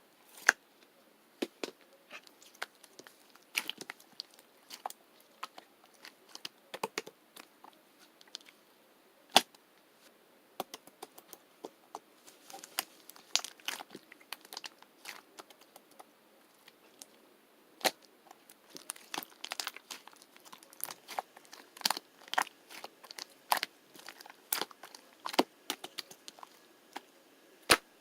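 Slime being squished and stretched by hand, giving irregular sharp pops and clicks of trapped air, sometimes in quick runs of several a second.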